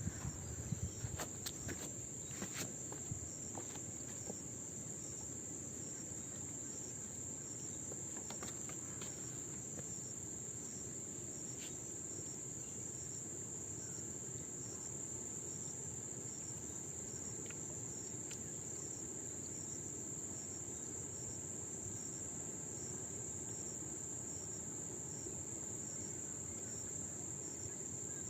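Steady, high-pitched chirring of insects, unbroken with a faint regular pulse. There is a low steady background hiss, and a few faint clicks in the first few seconds.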